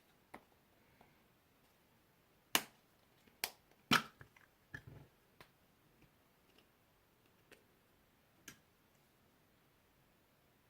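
Slime being squeezed and kneaded by hand, making a scattering of sharp pops and clicks at irregular intervals, the loudest about two and a half and four seconds in.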